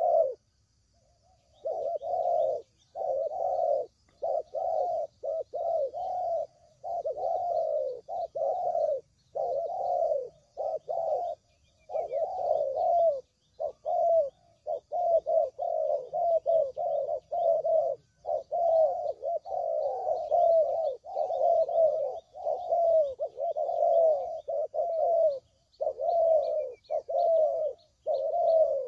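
Spotted dove (tekukur) cooing over and over in close succession, with only short breaks between the calls; this is a lure call used to draw in wild doves. Faint high chirping sounds behind the cooing.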